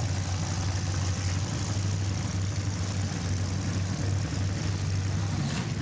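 Demolition derby cars' engines running together in a steady drone, with no crashes heard.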